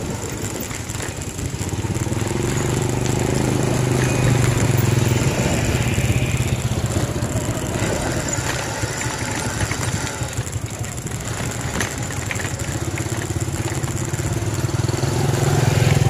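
Motorcycle engine running under way, its note swelling a little twice, over a steady rushing noise.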